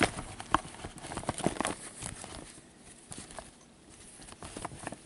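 A few sharp, separate clicks and knocks in the first couple of seconds, then faint room noise.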